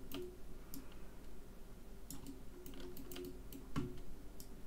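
Scattered clicks and key taps from a computer keyboard and mouse, with one louder click near the end.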